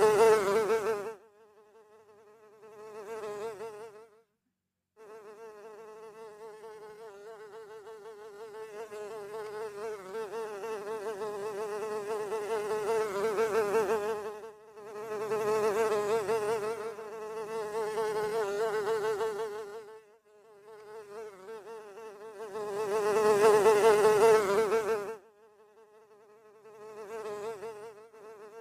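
A fly buzzing in flight: a steady, reedy drone that swells loud and fades again several times as it passes close to and away from the microphone, and cuts out briefly about four seconds in.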